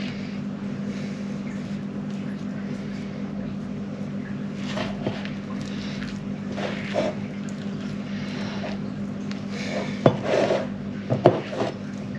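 Hands squeezing and folding sticky naan dough in a mixing bowl: soft squelches and dough slaps, with a couple of louder knocks against the bowl about ten and eleven seconds in, over a steady low hum.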